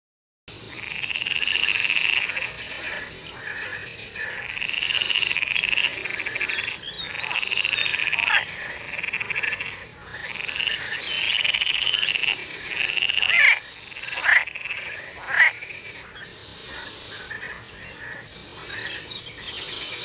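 Frogs calling: a run of long croaks, each lasting a second or two with short gaps between them, then three brief, sharp calls in the middle that are the loudest, followed by scattered softer calls.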